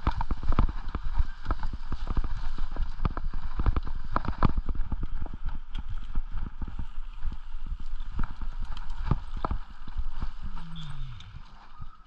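A mountain bike and its handlebar-mounted camera rattling and knocking as the bike rolls over bumpy grass, a fast, irregular clatter over a low rumble. The clatter quietens near the end.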